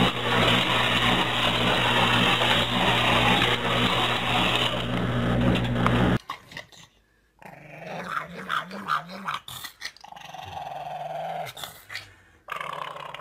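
A loud steady buzzing hum for about six seconds that cuts off suddenly, then a pug growling low with a wavering pitch, in several drawn-out stretches.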